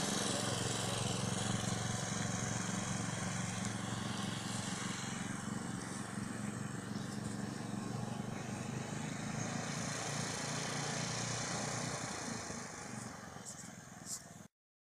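Walk-behind tractor engine running steadily under load while towing an SUV in second gear. It fades near the end and cuts off suddenly.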